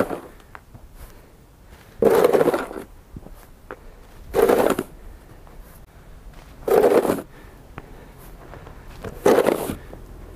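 Snow shovel with a red blade scraping over paved ground as it pushes loads of snow, in four strokes about two and a half seconds apart.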